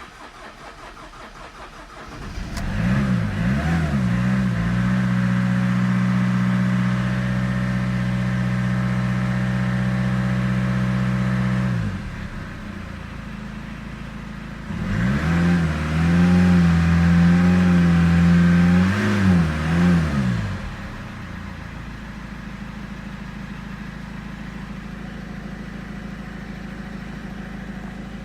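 Car engine running and revved twice with the throttle held. Each time the pitch climbs and stays steady, the first for about nine seconds and the second for about five. Between and after, the engine drops back to a steady idle.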